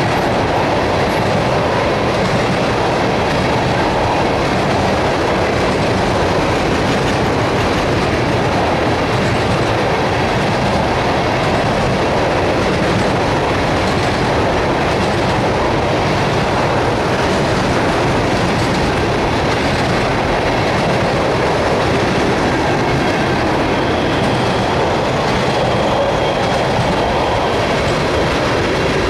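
Empty ethanol tank cars of a freight train rolling past at speed: a loud, steady clatter and rumble of steel wheels on the rails.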